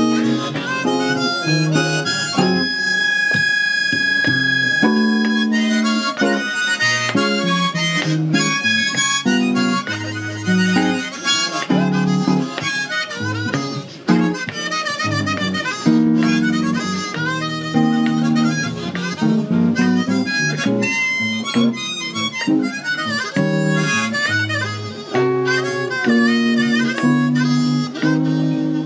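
Harmonica playing a jazz melody line over guitar accompaniment, with one long held high note a few seconds in.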